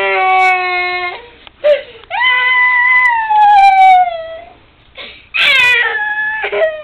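A young boy crying in three long wails, the middle one sliding down in pitch, as EEG electrodes are pulled off his scalp.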